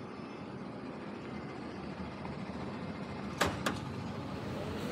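Steady background hum, with two sharp clacks close together about three and a half seconds in as a boxed meal tray is taken out of the collection slot of a meal vending machine.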